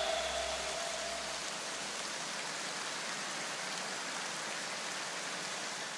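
A steady, even hiss of noise, like rain or static, while the last ringing tones of electronic music die away in the first second and a half.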